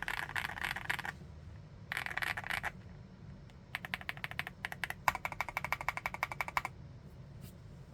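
Typing on an MCHOSE GX87 full-aluminium tenkeyless mechanical keyboard with TTC Flaming Orange switches: four runs of fast keystrokes, the last a quick, even string of strokes, stopping a little over a second before the end.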